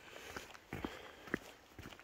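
Footsteps on a cleared, wet paved drive: a few irregular scuffing steps on grit and slush.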